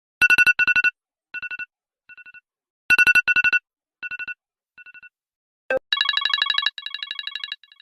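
Phone alarm ringtones. A trilling two-note electronic ring sounds twice as a pair of short, rapidly pulsed rings, each followed by fading echoes. About six seconds in, after a click, a different, fuller trilling alarm tone starts and then begins to fade.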